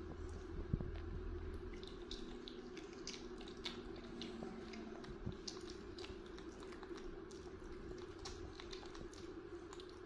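Faint small clicks and wet smacks of eating and fingers handling soft food, scattered irregularly over a steady low hum, with one sharper knock about three quarters of a second in.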